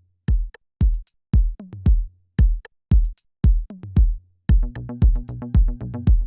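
Electronic dance music: a steady four-on-the-floor kick drum at about two beats a second with a bass line, and a busier synth part that comes in about four and a half seconds in.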